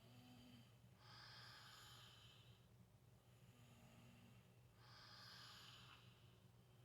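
Faint, slow breathing of people asleep and softly snoring: two long breathy breaths about four seconds apart, each with a short low note just before it.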